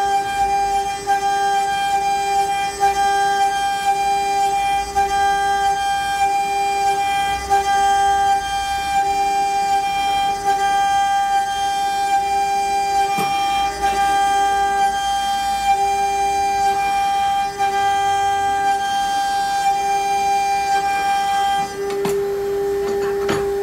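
The 2.2 kW water-cooled spindle of a CNC router whines steadily at one high pitch as it mills into a fibreboard sheet. A lower tone comes and goes as the cut changes.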